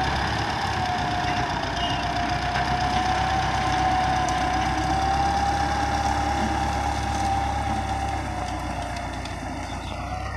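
Diesel engine of a Russian-built tractor running under load as it drags a tine cultivator through scrub: a low rumble with a steady high whine over it. It fades over the last couple of seconds as the tractor pulls away.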